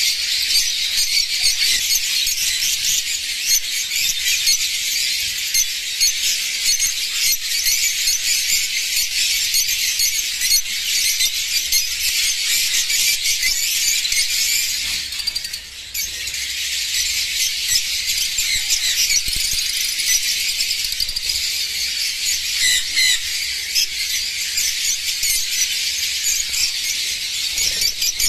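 A flock of Fischer's lovebirds chattering, a dense, continuous stream of shrill squeaks and screeches that dips briefly about halfway through.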